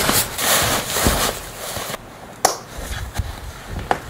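Jacket and backpack rustling as a heavy pack is swung onto the back, followed by a few sharp knocks and footsteps.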